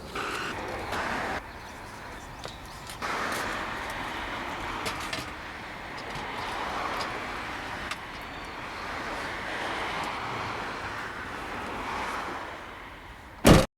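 Car on the move: steady road and engine noise, in a few short clips edited together, with one loud knock shortly before the end.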